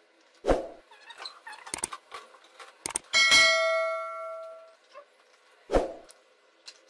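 A few light clicks, then a bell chime about three seconds in that rings and fades over about a second and a half, a subscribe-button sound effect. Two soft knocks come before and after it.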